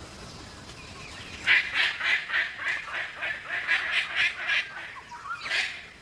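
Palm cockatoo giving a rapid run of about a dozen harsh squawks, about four a second, then one more call near the end.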